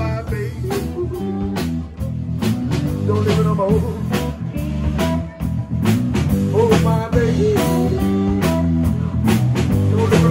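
Live electric blues band playing: electric guitars over a drum kit keeping a steady beat.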